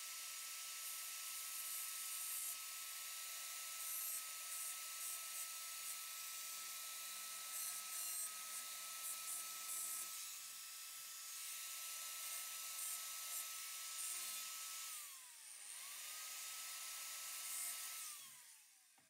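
A small high-speed electric power tool running with a steady high whine, with scratchy bursts of grinding against metal. Near the end it is let off and winds down, runs up again, then winds down a second time.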